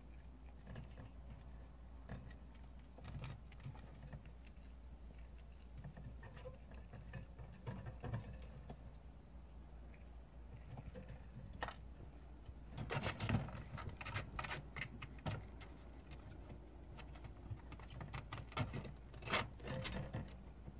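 Prairie dog chewing fresh grass blades: a run of irregular crisp crunches and clicks, busiest about two-thirds of the way through and again near the end.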